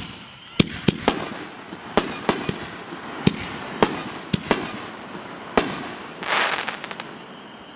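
Consumer aerial shells (Pyro Junkie Pyro Shells, Black Edition) firing and bursting: a series of sharp bangs, about a dozen over five seconds, then a short dense crackle about six seconds in.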